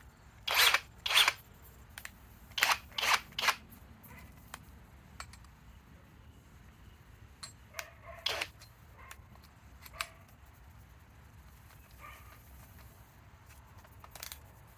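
Sharp plastic clicks and clacks from handling a cordless hammer drill while it is set up, with no motor running: two loud clicks in the first second and a half, a quick run of three around three seconds in, then single clicks near eight and ten seconds with faint ticks between.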